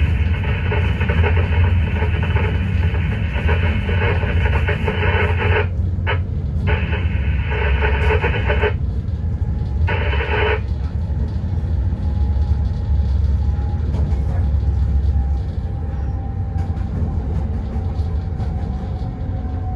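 Newag Dragon electric locomotive running with a steady low rumble. In the first ten seconds come bursts of hiss from the cab radio that switch on and off abruptly, and after that a faint whine sinks slowly in pitch.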